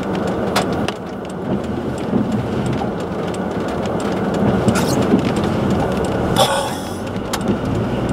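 Rain drumming steadily on a car in a thunderstorm, with scattered sharp clicks of drops striking and a low rumble underneath. About six seconds in there is a brief louder swish.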